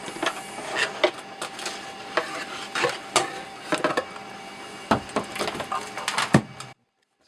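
Irregular clicks, taps and knocks of hard objects being handled and set down, over a faint steady hiss. It cuts off abruptly near the end.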